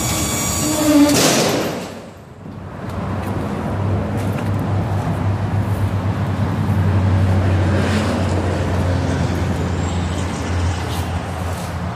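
A motor running with a low, fast throb that sets in about three and a half seconds in and holds steady, after a loud bump about a second in.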